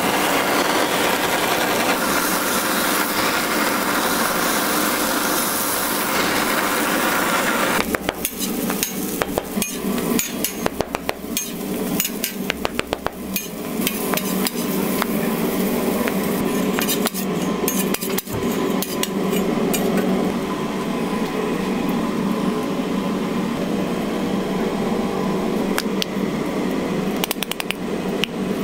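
Cooking on a steel flat-top griddle. For about the first eight seconds there is a steady hiss of a blowtorch flame and sizzling. After that come repeated sharp clicks, taps and scrapes of metal utensils on the griddle, some in quick runs.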